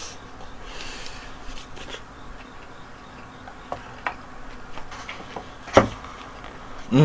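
A man chewing a mouthful of boneless fried chicken with his mouth closed, with faint scattered clicks and one sharper click near the end.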